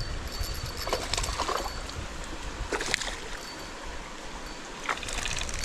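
River water running steadily while a hooked trout is played, with a few short sharp sounds about 1 and 3 seconds in and a burst of rapid clicking near the end.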